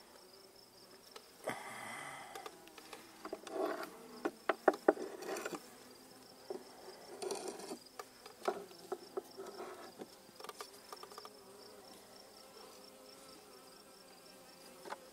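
Honeybees buzzing over an open hive while a cricket trills steadily on one high note. A cluster of sharp clicks and scrapes, loudest about four to five seconds in, comes from the hive tool and wooden frames being handled.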